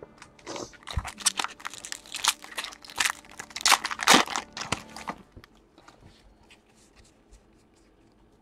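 Foil trading-card pack wrapper being torn open and crinkled by hand, a dense crackling that stops about five seconds in. Faint ticks of the cards being handled follow.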